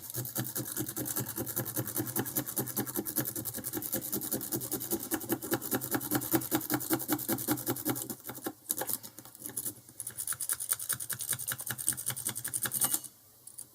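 Lock pick raked rapidly back and forth over the pin tumblers of a Squire SS50C padlock, a fast, even run of small metallic clicks with a short pause about nine seconds in.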